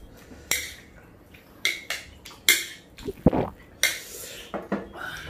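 Utensils clinking and scraping against ceramic plates and a metal cup while two people eat noodles: a string of about seven short, sharp sounds.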